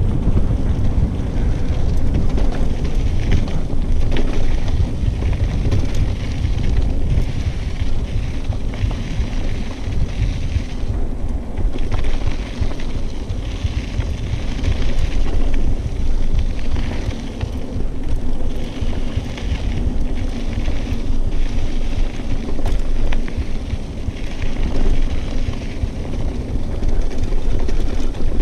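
Wind buffeting a GoPro Hero 5's microphone as a mountain bike rolls fast down a dirt singletrack, with tyre noise on the dirt that swells and fades and small clicks and rattles from the bike.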